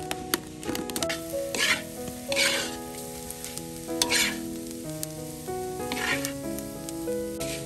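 Shredded ginger sizzling as it is stir-fried in a metal wok, with a metal spatula scraping and tossing it against the pan about five times.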